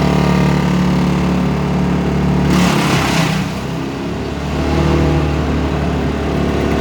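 A large engine running steadily, from the tree-removal equipment. About two and a half seconds in, a brief burst of rushing noise rises over it for about a second.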